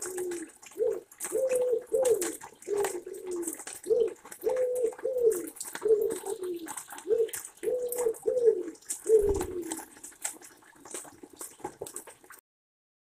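A pigeon cooing: repeated phrases of low notes, some held flat and some falling, stopping about ten seconds in. Under it is the patter of rain dripping. The sound cuts out completely near the end.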